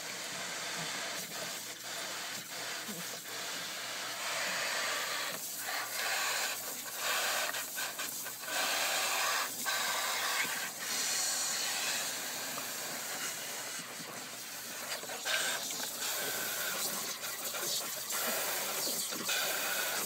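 Water from a garden hose hissing and splashing into a plastic kiddie pool as a pit bull bites and laps at the stream, a steady hiss broken by brief dips.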